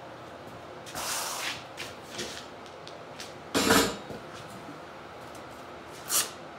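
Handling noises in a workshop while a person takes up an idle orbital sander: clothing rustle about a second in, a loud thump about halfway, and a short sharp ripping sound near the end.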